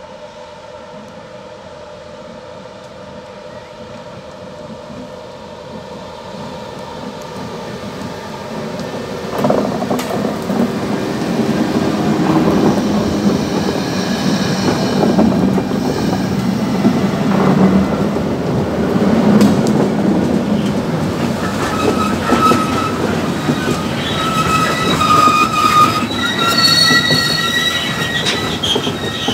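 Two BB 75000-class diesel-electric locomotives heading a stone train approach with their engines running. The sound grows steadily louder until they pass close by about ten seconds in. The hopper wagons then roll past, with high-pitched wheel squeals through the last several seconds.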